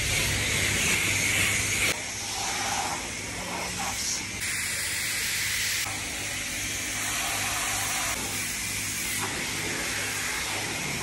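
Self-serve car wash high-pressure wand spraying water onto a car's body and glass: a steady hiss over a low hum. The sound changes abruptly a few times.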